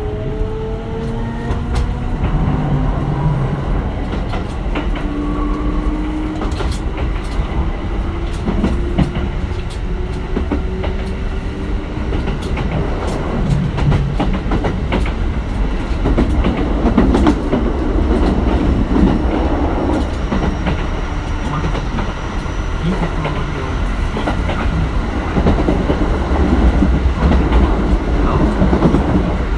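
Running sound of a Kintetsu 1420 series train with Mitsubishi GTO-VVVF traction control, heard from inside the car. Several inverter and motor tones climb slowly in pitch over the first few seconds. After that the sound is a steady low rumble of wheels and motors, with scattered clicks from the rail joints.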